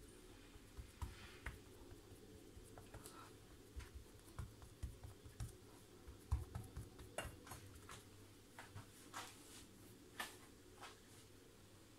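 Near silence: faint room tone with scattered soft clicks and low thumps.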